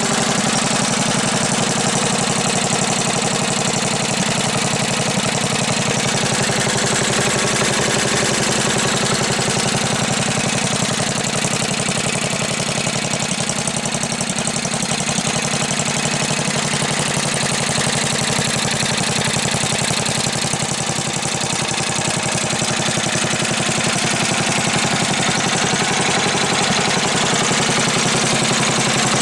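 Briggs & Stratton 11 hp single-cylinder four-stroke snowblower engine, warm, running steadily and smoothly through a makeshift muffler.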